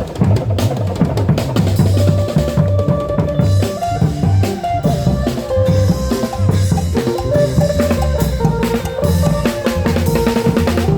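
Klong yao long-drum band playing a driving drum rhythm, with a stepping melody of held notes over the drums.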